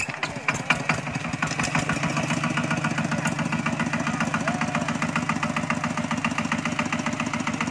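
Two-wheel walking tractor's single-cylinder diesel engine starting up, catching with a few sharp knocks and then running at a steady, fast chugging beat.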